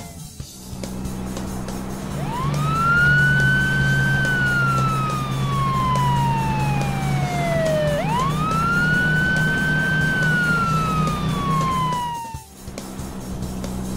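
Police siren sound effect wailing in two slow sweeps, each rising quickly and then falling slowly over about four seconds, over a steady low hum. It cuts off suddenly near the end.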